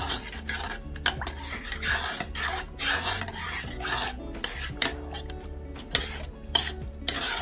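Metal spoon stirring a pot of liquid, scraping against the bottom and sides of a stainless steel saucepan in repeated strokes.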